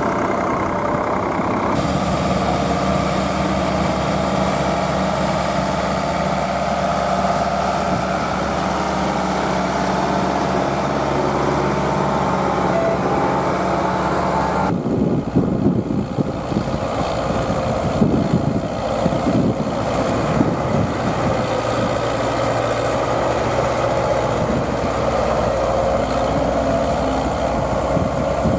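Vintage tractor engine running steadily as it pulls a plough through a stubble field. About halfway through, wind buffeting on the microphone takes over, with an engine still humming underneath.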